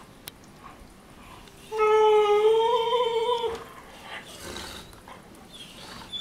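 A Weimaraner gives one long, high whining howl during a play-fight, starting about two seconds in and lasting nearly two seconds, its pitch rising slightly. Soft scuffling of the dogs on the bedding can be heard around it.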